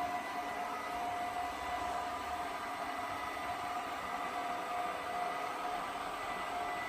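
Robot vacuum cleaner running: a steady whirring hiss with a few motor whine tones held at a constant pitch.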